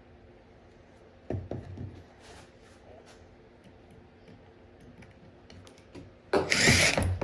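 Tools handled on a wooden board, with a few knocks about a second and a half in, then near the end a loud rasping burst of about a second as a screw is driven into the wood with a cordless drill.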